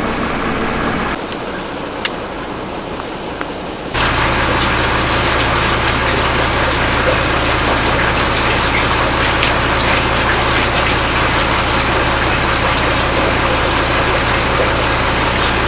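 A motor-driven machine running steadily: a constant low hum under a rushing hiss. The sound drops quieter about a second in and changes abruptly to a louder, steady hum at about four seconds.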